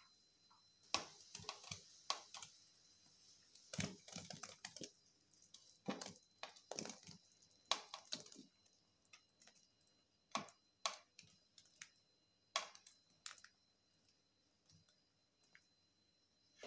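Baby potatoes and baby onions being pushed off a plate into thick salan gravy in a kadai: clusters of sharp clicks and scrapes against the plate with soft wet plops into the gravy, thinning out near the end.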